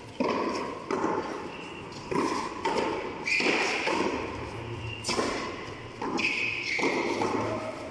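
A tennis ball struck by hand and hitting the concrete walls and floor of a covered frontón court during a rally. About eight sharp, unevenly spaced thuds, each with a hall echo.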